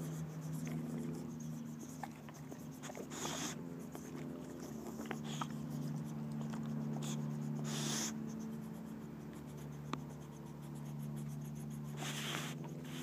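Boxer dog nosing and chewing in grass right at the microphone: scratchy rustling with a few louder breathy puffs about four seconds apart and small clicks, over a steady low hum.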